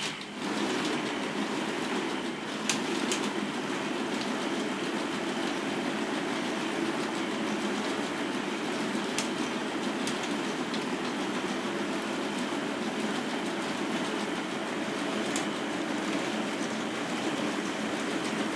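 A K'nex robot arm's plastic gears and chains running through a joint-by-joint test program: a steady mechanical rattle with a few sharp clicks.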